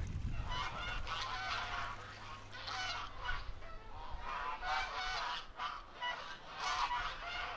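A flock of farmyard fowl calling, many short overlapping calls one after another.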